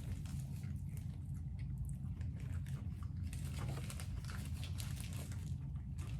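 A person biting into and chewing a barbecue chicken sandwich, with scattered small crunches and wet mouth clicks over a steady low hum.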